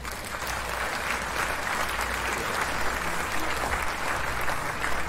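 Applause from a crowd: many hands clapping in a dense, steady stream, starting as the music cuts off.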